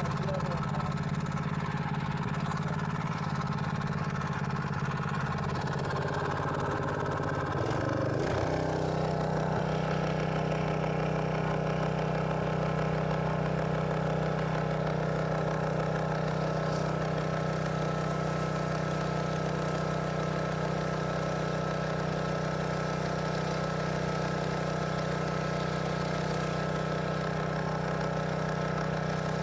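A small engine running steadily, its note wavering and shifting about eight seconds in before settling into an even drone.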